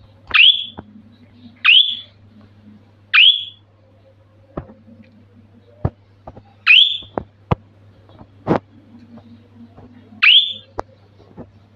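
Pet budgerigar giving five short, sharp chirps, each rising quickly in pitch, spaced one to three and a half seconds apart. Sharp little clicks sound between the chirps.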